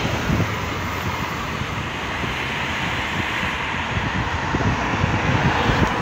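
Moving car's road and engine noise heard from inside, with wind buffeting the microphone as a steady rushing and low irregular rumble.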